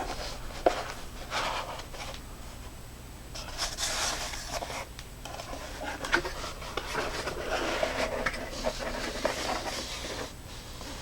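Rustling and scraping as a flashlight's packaging is handled and opened to take the light out, with a few sharp clicks and knocks.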